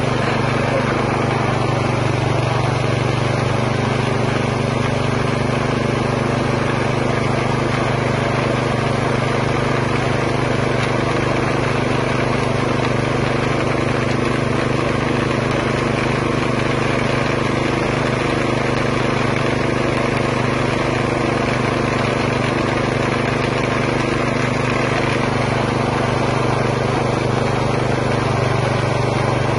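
Motor-driven meat grinder running steadily as raw chicken fillet is fed through it, a constant engine-like drone with a low hum.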